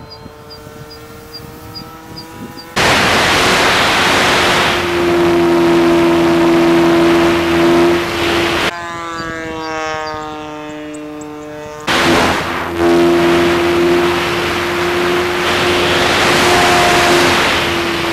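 Electric motor and propeller of an FMS P-51 Mustang RC model plane. Twice it is heard from the ground as a distant whine that falls in pitch as the plane flies past, and in between, from its onboard camera, as a loud rush of wind over a steady motor drone.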